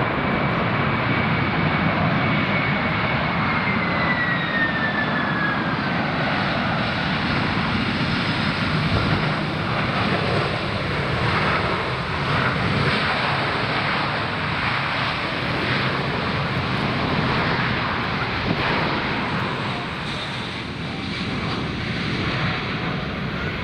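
Jet airliner passing close by: a loud, steady engine roar with a high whine that falls in pitch over the first several seconds.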